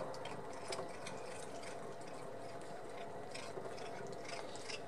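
Domestic cat purring steadily while chewing a shrimp shell, with irregular crisp clicks and crunches from the bites over the purr.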